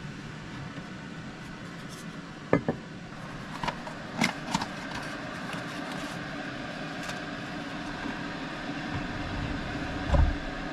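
Electric kettle heating water, a steady rushing hiss slowly growing louder. Over it come a few sharp clicks and rustles as a cardboard tea box and a tea packet are handled, and a low thump near the end.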